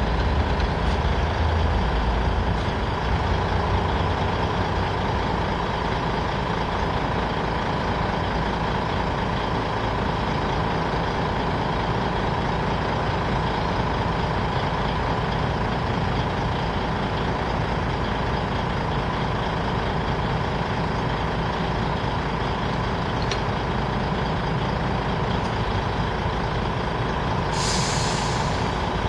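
Heavy lorry's diesel engine idling steadily, with a short hiss of air brakes near the end.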